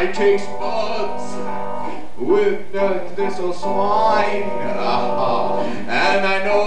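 Live music: a man singing over instrumental accompaniment.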